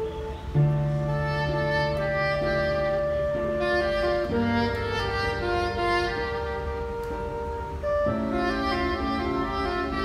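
Soprano saxophone playing a slow melody in long held notes over a backing track with strings and bass.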